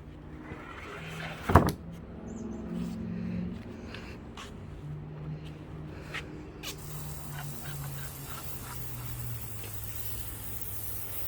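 A sharp knock about a second and a half in, then scattered light clicks and rustling from handling freshly sawn elm slabs, over a low steady hum; a soft hiss joins about halfway through.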